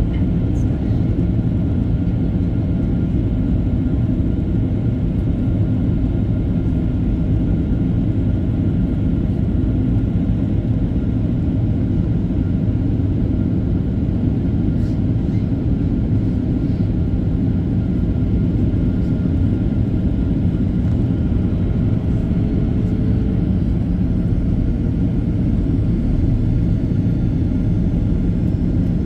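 Steady cabin rumble of a Boeing 737-800 in flight, its CFM56 jet engines and the rushing airflow heard from inside the passenger cabin.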